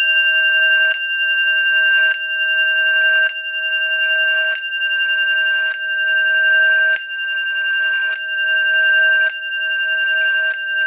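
Antique grandfather clock movement's bell struck by its hammer at an even pace, about one stroke every 1.2 seconds, nine times. Each stroke rings on into the next, and the ringing is loud. The striking was set off by hand.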